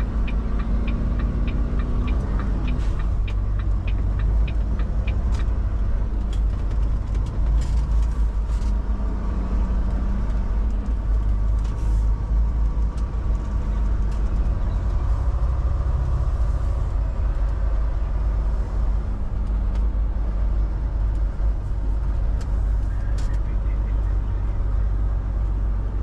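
Steady low rumble of a semi truck's diesel engine heard from inside the cab, with a light regular ticking during the first few seconds.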